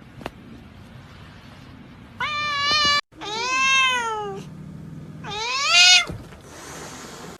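A cat meowing three times. A short call comes about two seconds in and cuts off abruptly, followed by a longer meow that rises and falls and a rising meow near the end.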